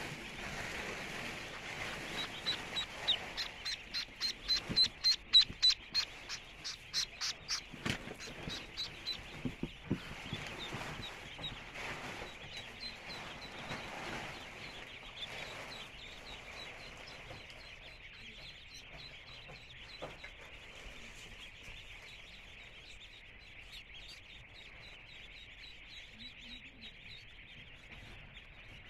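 Dense, steady peeping of a large crowd of ducklings. From a couple of seconds in to about ten seconds in, a run of louder, rapid sharp peeps rises over the chorus, then it settles back to the steady mass of peeping.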